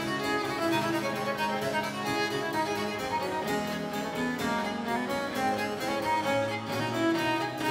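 Baroque-style classical music with a violin playing over harpsichord.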